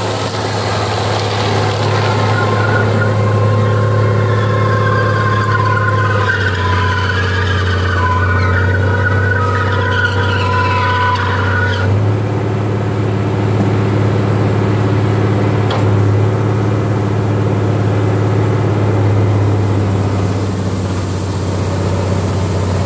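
Tractor engine running steadily under load while a side-mounted rotary disc mower cuts tall grass. A higher whine sits over the engine from about two to twelve seconds in, and the engine note shifts slightly at about six and twelve seconds in.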